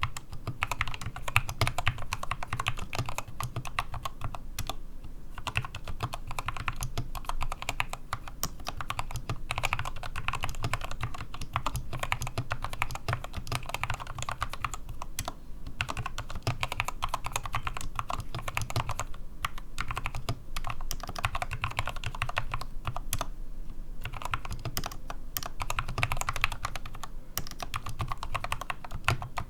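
Fast typing on a modded SK61 mechanical keyboard with lubed Gateron Optical Brown tactile switches, foam dampening and DSA PBT keycaps, set directly on an oak desk with no mousepad. A dense, continuous stream of keystrokes with a few short pauses.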